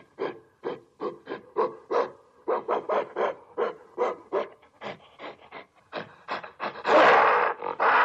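Gorilla calling: a rapid series of short, clipped calls, about three a second, building to one loud roar about seven seconds in.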